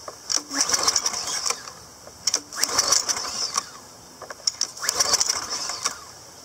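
Recoil starter of a Briggs & Stratton 190cc single-cylinder engine pulled three times, about two and a half seconds apart, with the rope ratcheting out and the engine turning over on each pull without starting and running. This is a hard-starting engine that has sat for over a year, which the owner puts down to something stuck in the carburetor.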